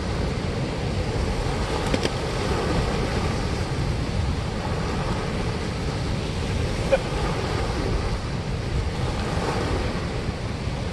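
Steady rushing of water pouring through a dam spillway, an unbroken roar with the most weight in the low end.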